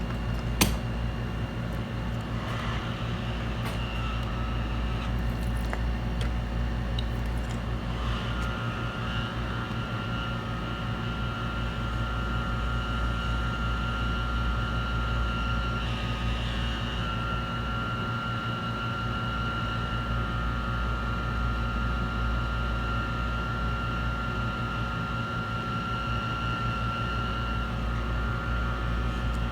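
Steady machine hum with a faint, steady high-pitched whine over it, and a single sharp click about half a second in.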